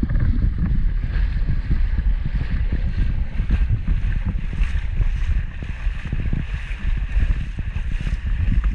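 Wind buffeting the microphone in a heavy low rumble, over water sloshing and splashing around legs wading through shallow lagoon water.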